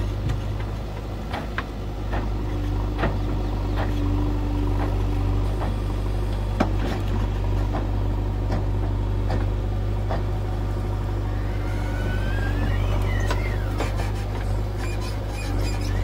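Heavy diesel engine running steadily at work, with scattered sharp knocks and clanks. A high squeal rises and falls about three quarters of the way through.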